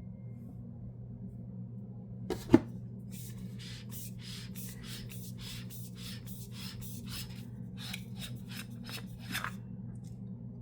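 Flashlight being handled: a sharp knock about two and a half seconds in, then a run of short rubbing and scraping strokes, a few a second, as hands grip and work at the light's body. A faint steady low hum underneath.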